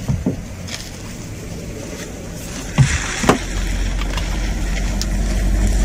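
Two sharp knocks about half a second apart, near the middle, and faint rustling as gear is moved about in the back of a vehicle during a search. Under them runs a low steady rumble that grows louder about halfway through.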